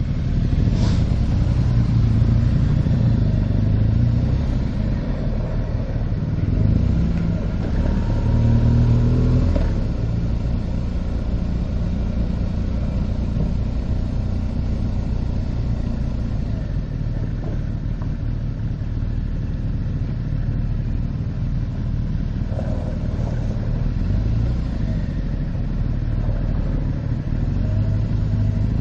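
Motorcycle engine and wind noise while riding, with the engine pulling harder and rising in pitch a few times in the first ten seconds or so, then running steadily.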